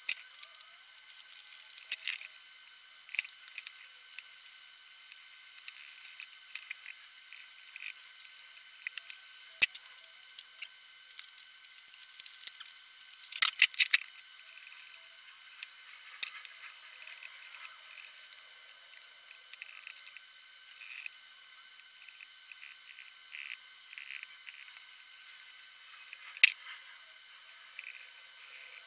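Small metal parts of a hand brace clinking and rattling against each other and the plastic bucket as they are scrubbed in cleaning liquid, with wet squishing and the scratch of a wire brush. Irregular sharp clicks, a cluster of louder ones about halfway through, over a faint steady high whine; the sound is thin, with no low end.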